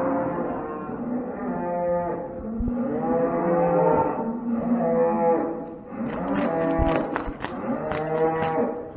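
Cattle mooing over and over, several long calls overlapping one another. From about two-thirds of the way through, a string of sharp knocks joins in.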